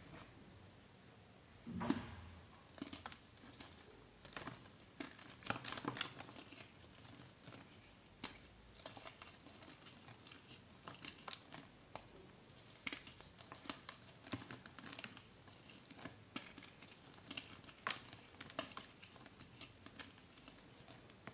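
Hands crushing and breaking apart balls of reformed gym chalk in a bowl of loose chalk powder: irregular soft crunches and crackles of crumbling chalk, with a louder thud about two seconds in.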